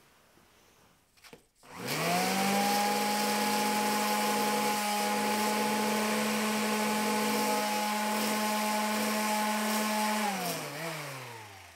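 Electric random orbital sander switched on about two seconds in, spinning up quickly and running steadily as it sands an oak timber, then switched off near the end and winding down with falling pitch.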